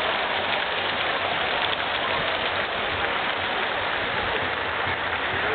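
Steady hubbub of a large crowd of marchers, many voices and footsteps blending into one even wash of noise.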